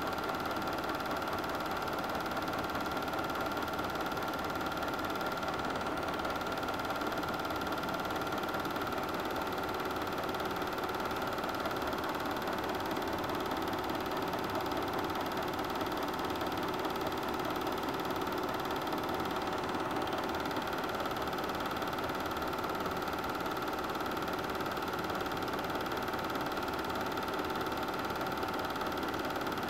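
Super 8 film projector running steadily, its motor and film transport making a constant mechanical whir with a steady hum.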